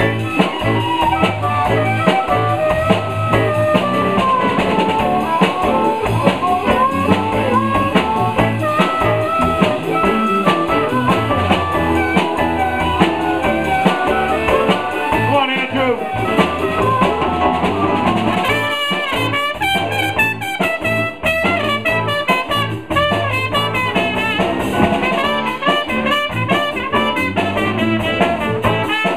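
Live blues band playing an instrumental break, a trumpet leading over drum kit and the rest of the band.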